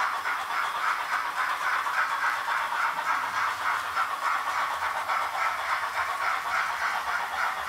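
Roco HO-scale model steam locomotive's DCC sound decoder playing a steady, even exhaust chuff of about four to five beats a second as the model runs.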